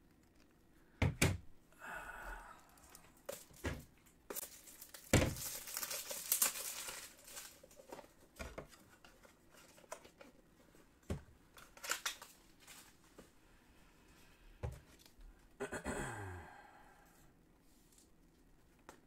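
Foil wrapper of a trading-card pack being torn open and crinkled, in two longer stretches about a third of the way in and near the end. Between them come scattered light clicks and taps of cards and plastic toploaders being handled.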